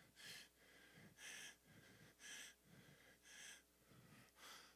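A man breathing into a handheld microphone, faint, with a short breath about once a second.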